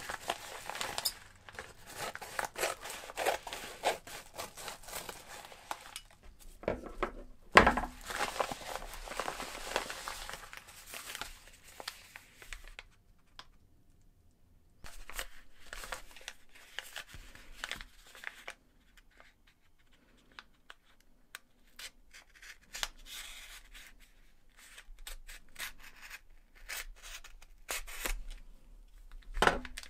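Scissors cutting open a padded paper mailer, then paper rustling and crinkling as a paper-wrapped parcel is handled and unwrapped. There is a sharp knock about eight seconds in, and the handling sounds turn quieter and more scattered in the second half.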